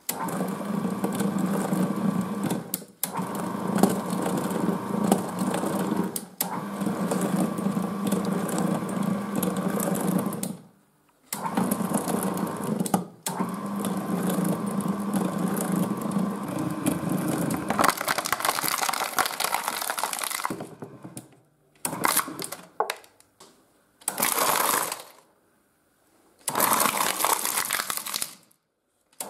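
A twin-shaft shredder driven by an electric motor through a gearbox, running with a steady hum and a constant whine. In the second half, clear plastic film crackles and tears as the cutter discs chew it up, in short stretches that stop and start abruptly.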